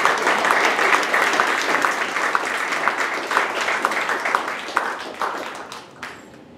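Audience applauding, many claps at once, dying away over the last couple of seconds.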